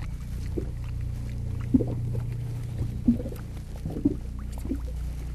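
Steady low hum of a boat's engine idling, with a few light knocks.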